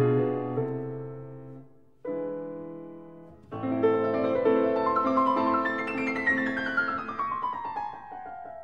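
Background piano music: chords dying away, a short break about two seconds in, then the playing resumes with a run of quick notes stepping down in pitch near the end.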